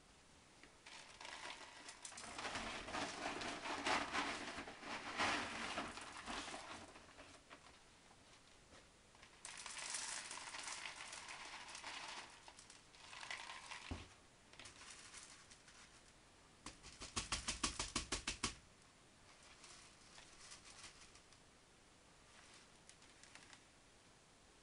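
Soft rattling and rustling of LECA clay pebbles and a glass pot being handled around an orchid's roots, in irregular bursts, with a single click past the middle and a quick run of about ten taps soon after.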